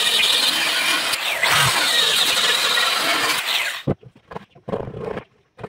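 Small handheld electric circular saw cutting into a wooden board to make a hand-grip slot, then switched off and winding down about three and a half seconds in. A few short knocks follow as the tool and board are handled.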